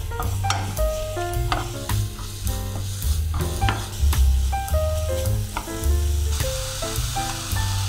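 Sliced mushrooms sizzling in oil in a frying pan while a wooden spatula stirs them, the sizzle growing louder near the end. Background music with a steady bass plays throughout.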